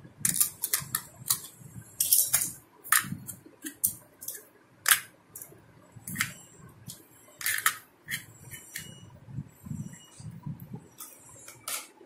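Small plastic toy food pieces and a plastic toy bowl clicking and clacking together as they are handled, a string of irregular sharp clicks with soft handling bumps between them.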